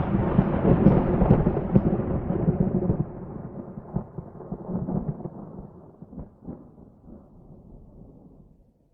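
Rolling thunder, rumbling and crackling, dying away to nothing. It drops off sharply about three seconds in.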